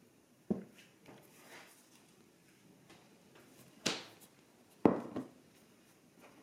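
Three separate knocks: a dull one about half a second in, a sharper ringing one just before four seconds, and the loudest just before five seconds, with a smaller knock right after it.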